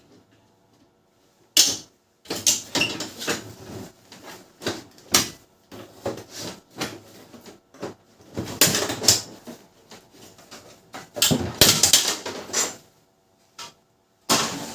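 Irregular clicks, knocks and scrapes of plastic printer casing and parts being handled and pried open on a Canon LBP6030 laser printer, in uneven clusters with short pauses.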